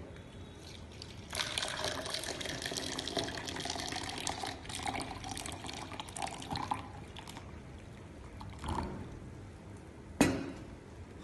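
Liquid pouring and splashing for about six seconds, starting a little over a second in. After it comes a knock, and near the end a sharp click.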